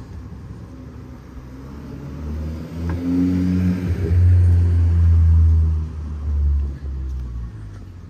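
A motor vehicle passing close by: a low engine hum that grows louder over a couple of seconds, is loudest in the middle, then fades away.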